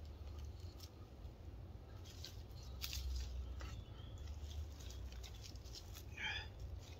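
Hands scraping, crumbling and patting garden soil and dry leaves while backfilling around a planted tomato seedling: scattered rustles and small crackles. A short squeaky chirp about six seconds in.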